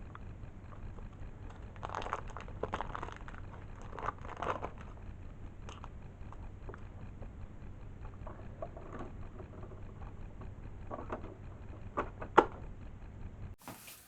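Hands handling things during a printer repair: irregular rustling and crunching with scattered clicks, a sharp click near the end the loudest, over a low steady hum.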